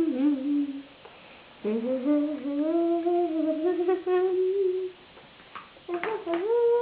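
A young boy humming a wordless tune to himself, long held notes that slide up and down in pitch, with two short pauses.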